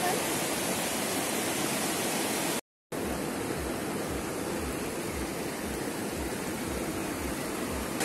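Shallow mountain river rushing over rocks in rapids, a steady hiss of moving water. The sound cuts out for a moment a little before the halfway point. After that, soft low thumps come about twice a second under the water noise.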